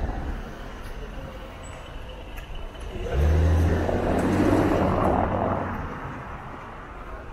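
A motor vehicle passing close by on the street: a low engine hum with tyre noise swells about three seconds in, is loudest around the middle, and fades away over the next few seconds against steady street background.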